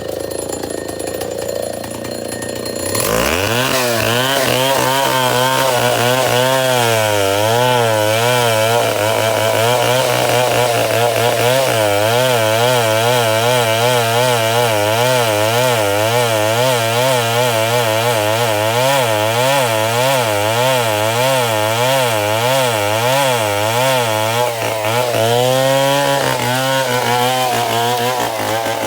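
Chainsaw running at high revs from about three seconds in, cutting wood, its pitch wavering up and down steadily under load. Near the end the pitch swings more widely, rising and falling.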